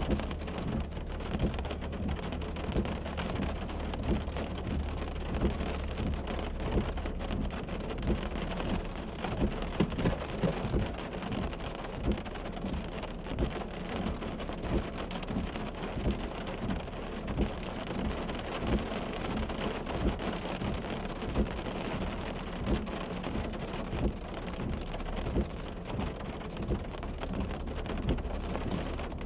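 Rain falling on a vehicle: a steady hiss with a low wind rumble and frequent sharper drop hits.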